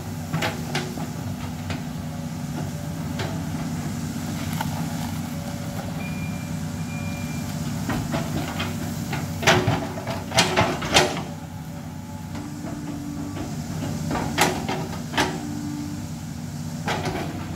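Cat excavator's diesel engine running steadily as it digs, with scattered sharp knocks and clanks from the bucket working dirt and branches, loudest in a burst about nine to eleven seconds in and again around fourteen to fifteen seconds.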